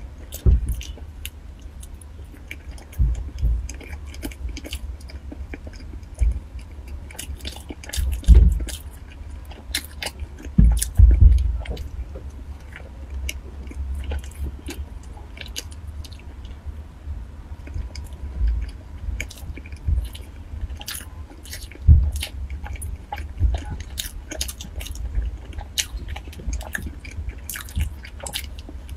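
Close-miked eating: a person biting and chewing a soft filled wrap, with many small sharp mouth clicks and wet chewing sounds. A few louder low thuds come about 8, 11 and 22 seconds in.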